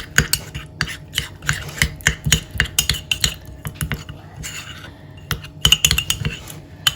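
Cutlery clicking and scraping against a small bowl while stirring a thick paste of mashed garlic, honey and olive oil: quick irregular clicks, several a second, with a brief lull past the middle.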